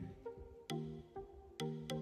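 Background music: short melodic notes over a light, regular beat.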